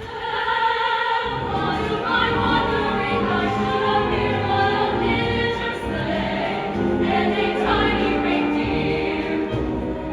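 Choir singing with instrumental accompaniment; the low notes come in about a second in.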